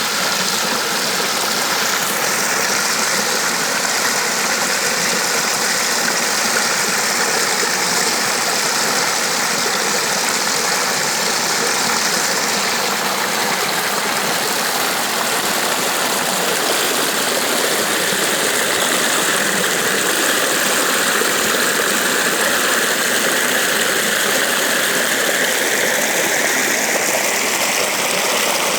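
Steady rush of flowing water, constant and loud, with a slowly shifting hiss.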